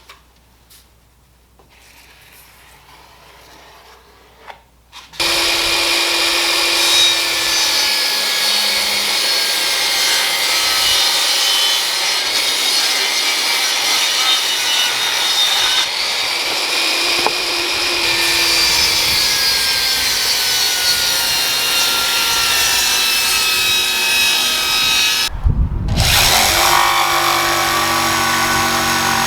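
A power saw cutting a wooden board for a seat-delete platform, starting about five seconds in and running steadily with a whining tone that shifts in pitch. It stops briefly near the end, then starts again.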